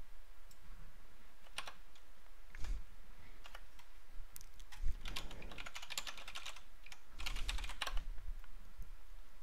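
Typing on a computer keyboard: light key clicks in several short runs with pauses between them.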